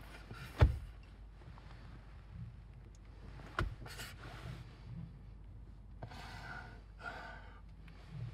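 A man's breathing and sighs, a few soft breaths in the second half, with a sharp click early on and another about three and a half seconds in.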